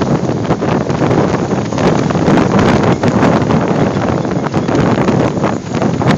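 Strong gusting storm wind buffeting the phone's microphone: a loud, rumbling rush that rises and falls without letup.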